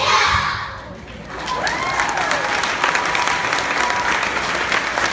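A children's choir ends its song with a loud final note in the first second, then the audience breaks into steady applause with a few cheers in it.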